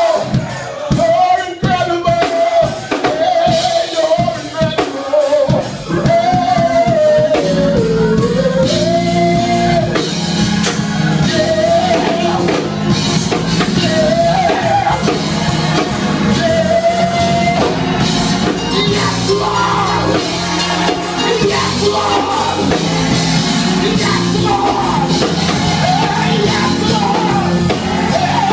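A solo voice singing over a band with drums, the melody held in long, wavering notes. The band is sparse at first, with just occasional hits, then comes in fully about five seconds in.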